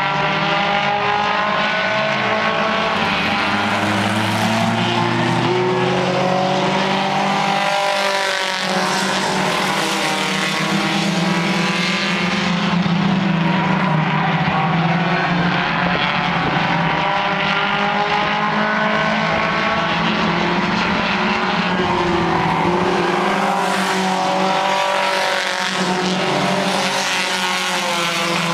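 A pack of compact stock cars, a Honda Civic among them, racing on a paved oval. Several engines run at once, their revs rising and falling as the cars pass and overlap.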